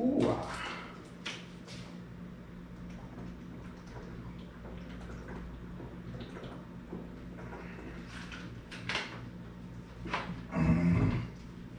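Drinking water from a plastic bottle: handling and crinkling of the bottle with swallowing, over a steady low hum in the room. A brief louder sound comes near the end as the bottle is lowered.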